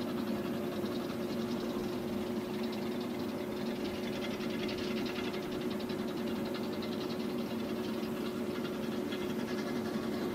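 Fendt 415 Vario tractor's four-cylinder diesel running steadily under load while pulling a Krone Comprima round baler that picks up and bales a windrow of alfalfa, with a fast mechanical rattle from the baler that is strongest in the middle.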